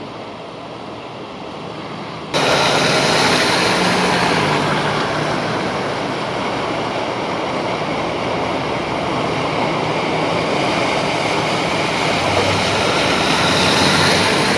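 Cars driving slowly through floodwater, the tyres sending up a steady rush and wash of water, with engines running low underneath. The sound jumps suddenly louder about two seconds in.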